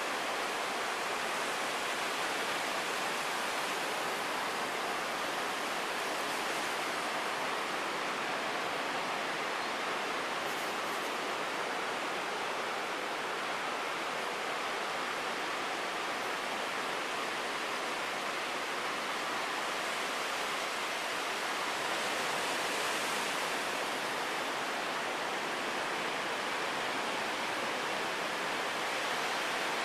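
Ocean surf washing steadily, an unbroken even hiss with no separate wave crashes standing out.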